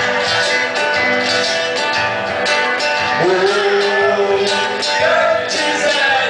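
Live acoustic band playing a song: a nylon-string acoustic guitar and an electric hollow-body guitar strummed together over a steady percussion beat, with a male voice holding a long sung note in the middle.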